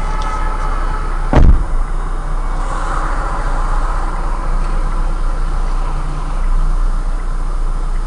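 Steady low running noise of a stopped car's idling engine, heard through a dashcam inside the car, with one loud, sharp thump about a second and a half in.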